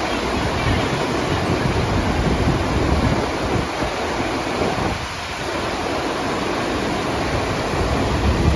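Steady rushing of water from a FlowRider wave simulator, its pumped sheet of water pouring up the slope, with wind rumbling on the microphone.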